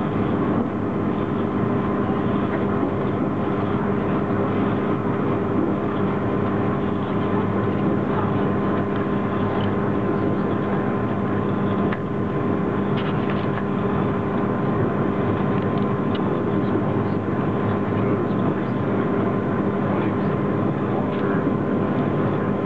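GoldenPass Panoramic electric train running along the track, heard from inside the passenger car: a steady rumble with a constant hum, and a few light clicks about halfway.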